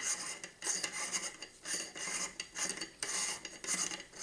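Metal camera adapter being unscrewed by hand from a telescope's field flattener: the threads scrape in short repeated strokes, two or three a second, as the ring is turned.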